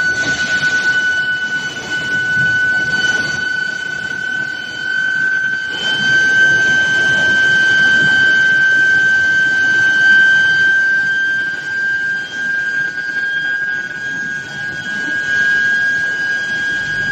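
Medium-frequency induction heating furnace whining with a steady high-pitched tone that drifts slightly upward in pitch, over the even noise of the steel reheating line's machinery.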